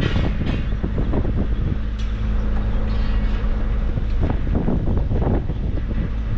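Wind buffeting the microphone, with a steady low hum underneath and a few short knocks.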